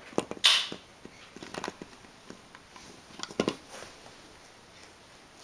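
Scattered soft clicks and knocks of a baby handling a small plastic toy car and flinging a plush toy on a foam play mat, with a short breathy rush of noise about half a second in.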